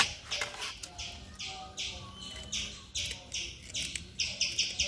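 A bird calling in a rapid run of short, high, raspy chirps, about three a second, quickening near the end. A sharp click sounds right at the start.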